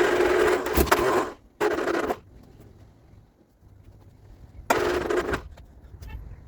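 Vauxhall Viva HC's starter motor cranking the engine in three short bursts: a start attempt. Each burst stops abruptly.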